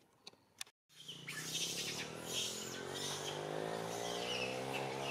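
A few faint ticks, then a brief dropout about a second in; after it, birds chirping with short high calls over a steady low hum.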